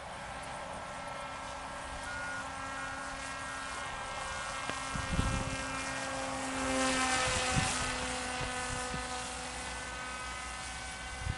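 Motor and propeller of an RC model flying wing whining in flight, the drone growing louder as the plane passes overhead about six to seven seconds in. A few low thumps sound briefly around five seconds in.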